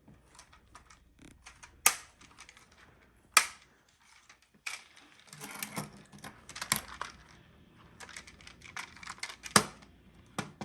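Plastic magnetic building tiles clicking and clacking against each other as they are handled and snapped together, in irregular clicks with a few sharper snaps, the loudest about two, three and a half and nine and a half seconds in.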